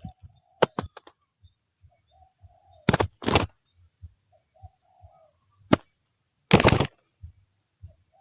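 Spotted dove cooing softly in short, low phrases, broken by several loud rustling bursts, the longest about half a second.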